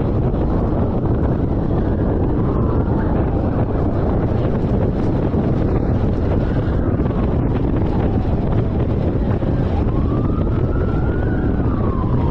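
Loud, steady wind and road noise from a car driving at speed. Under it, a police siren wails faintly, rising and falling a few times.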